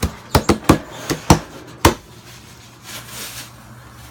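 A quick run of sharp clacks, about eight in two seconds, like hard small objects knocking together, followed by a brief soft rustle about three seconds in.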